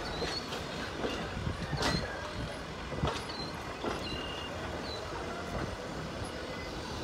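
Rock Island passenger coach rolling past on jointed track, its wheels clacking over rail joints with a few short squeals. The rumble gets fainter as the end of the train passes and moves away.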